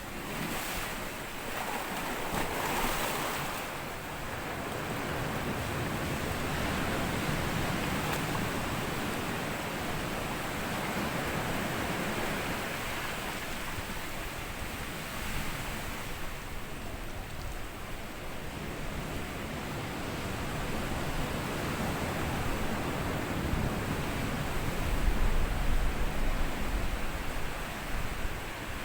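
Small ocean waves breaking and washing over a sandy beach, swelling and easing. The biggest wave comes near the end, with a deep rumble.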